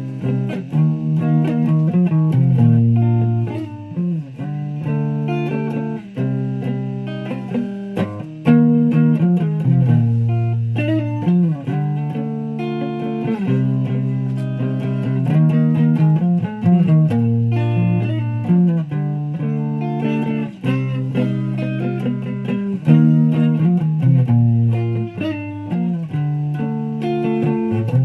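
Guitar being played: a continuous run of plucked notes and chords that changes pitch every second or so.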